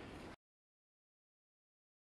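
Near silence: a steady rushing background noise cuts off abruptly about a third of a second in, leaving dead digital silence.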